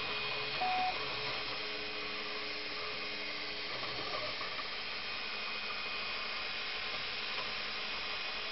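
Ultimaker 2 3D printer at work: a steady fan hiss with the hum of the stepper motors, whose tones shift and change as the print head moves, including a brief higher tone about a second in.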